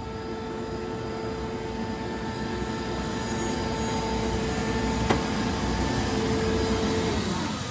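Atlas Copco GA11 FF rotary screw air compressor running with a steady whine over a rushing noise that grows louder, with one sharp click about five seconds in. Near the end the whine drops in pitch and fades as the compressor winds down.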